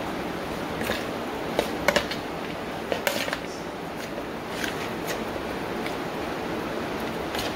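Seasoned goat meat being mixed in a plastic bowl, by hand and then with a spoon: scattered light clicks and taps over a steady background hiss.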